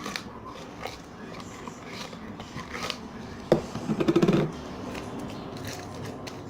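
Sticky homemade slime being mixed and scraped out of its container: small wet clicks and scrapes, with a louder burst of rapid crackling pops about three and a half seconds in.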